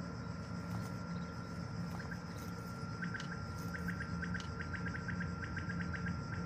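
Faint insect chirping: rapid, regular ticks that start a couple of seconds in, over a thin steady high tone and a low hum.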